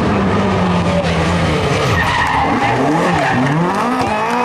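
Rally car engine at high revs, its pitch stepping down over the first two seconds as it brakes and shifts down for a bend. Then it swings up and down in quick surges as the car slides through the corner under power.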